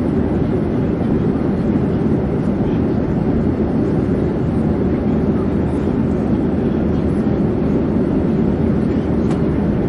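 Airplane in flight: a steady, even drone of engine and air noise, mostly low in pitch, with no change in level or pitch.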